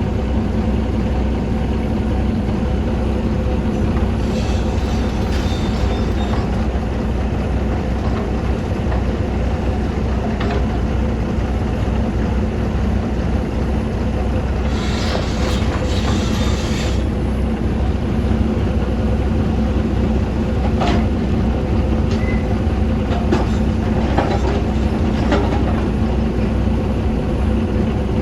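Excavator's diesel engine running steadily, with two bursts of stones clattering and scraping, about four seconds in and again around fifteen seconds, and a few sharp knocks later on.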